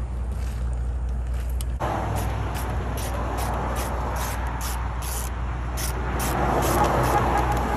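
A truck engine idling steadily with a low drone. About two seconds in, a louder even hiss joins it, with faint scattered clicks.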